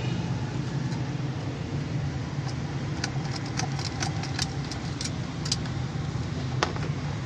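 Ignition keys of a Suzuki Mehran jingling and clicking in the ignition lock as the key is worked, with one sharp click near the end and no starter cranking. A steady low drone runs underneath.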